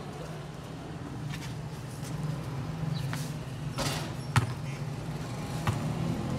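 A steady low engine hum, with a few scattered sharp knocks; the loudest knock comes about four and a half seconds in.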